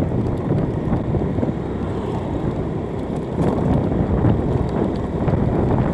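Motorcycle being ridden along a road: steady engine and road noise, with wind buffeting the microphone.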